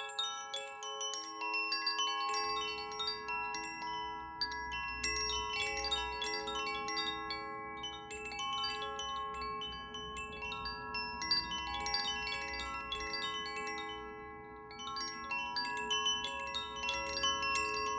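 Chimes tinkling in many quick, overlapping high strikes over several sustained ringing tones, as in a sound bath. A low hum joins about two seconds in and fades out past the middle.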